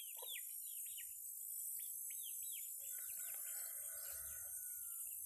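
A caged papa-capim, a Sporophila seedeater, calling in a run of short, quick chirps that each fall in pitch, over a steady high hiss.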